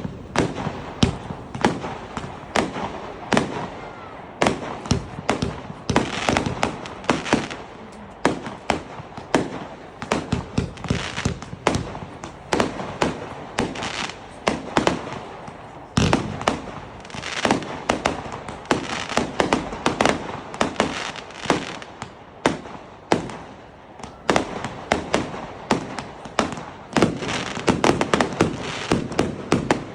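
Fireworks display: a dense, continuous run of sharp bangs and crackles, several reports a second with hardly a pause, thickening into bursts of rapid crackling every few seconds.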